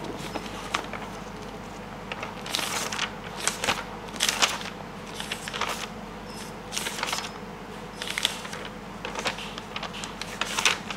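Dry-erase marker writing on a whiteboard: a string of short scratchy strokes, some drawn out for half a second or so, coming irregularly as the letters and symbols are formed.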